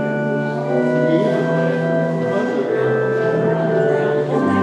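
Organ music: slow, sustained chords held and changing every second or so.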